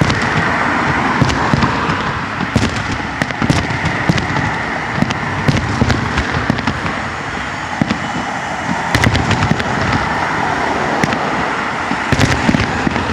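Fireworks display: a steady run of irregular bangs and crackles, many coming in quick clusters of several at once.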